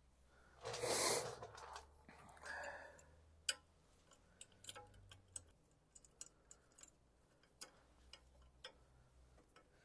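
Two soft rushing noises in the first three seconds, then faint, scattered metallic clicks and ticks as small bolts are handled and a bolt is threaded by hand into a motorcycle saddlebag mounting bracket.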